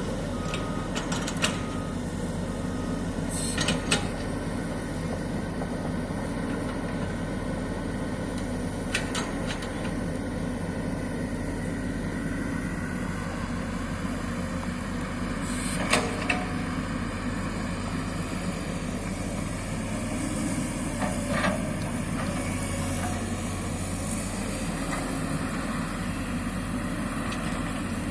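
SANY excavator's diesel engine running steadily, with a few short sharp knocks scattered through, the loudest about sixteen seconds in.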